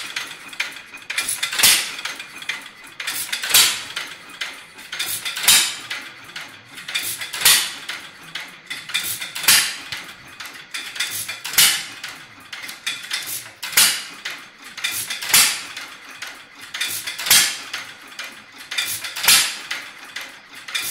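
Alpha De Laval stationary gas engine running, firing with a sharp bang about every two seconds, with lighter mechanical clicks between the firings, in the hit-and-miss pattern. It is running on a new head gasket and a new intake valve spring, which the owner thinks may be a little too heavy.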